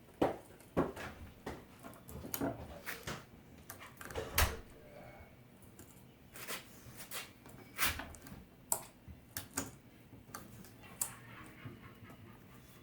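Irregular metallic clicks and rattles of a chainsaw chain being handled and seated around the guide bar.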